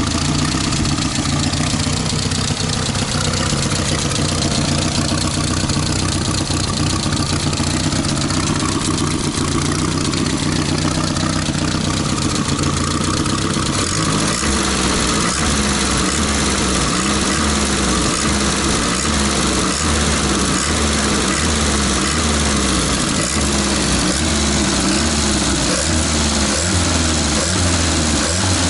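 Datsun A12 1.2-litre four-cylinder petrol engine running with the bonnet open. From about halfway its speed rises and falls a little more than once a second as the throttle is worked by hand at the carburettor. It misfires here and there, which the owner puts down to old ignition coils, spark plugs and leads.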